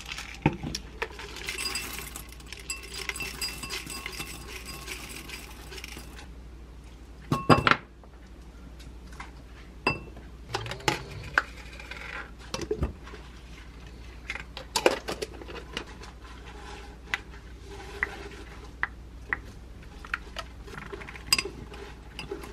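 Parfait-making sounds in a glass: a plastic granola jar opened and granola shaken out with a rattling hiss for several seconds, a loud knock about a third of the way in, then a string of light clinks and taps of a spoon and containers against a stemmed glass as berries and Greek yogurt go in.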